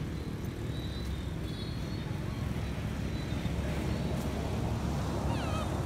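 Steady low rumbling outdoor background noise, with a few short, wavering high chirps near the end.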